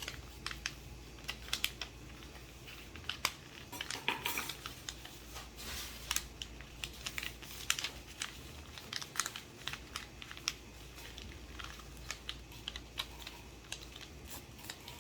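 Sheet of paper being folded and creased by hand into a paper airplane wing: irregular crisp rustles and clicks, denser about four seconds in.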